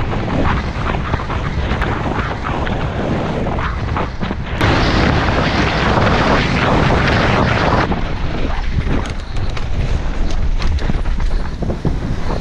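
Wind rushing over a helmet-mounted camera's microphone as a mountain bike descends at speed, with its tyres crunching over gravel and the bike clattering over bumps. The rush swells louder for about three seconds in the middle.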